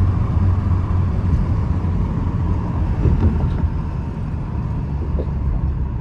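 Lexus V6 engine and exhaust running under steady light throttle while driving, a continuous low rumble that eases slightly about two-thirds of the way in.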